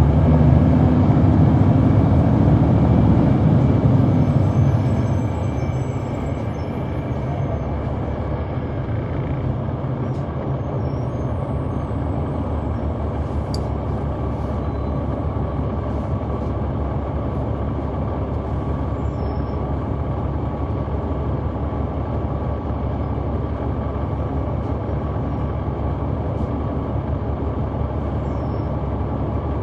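Caterpillar C9 ACERT diesel engine of a 2004 Neoplan AN459 articulated transit bus, heard from on board. It runs loud for the first few seconds, eases off about five seconds in, then runs steadily and quieter.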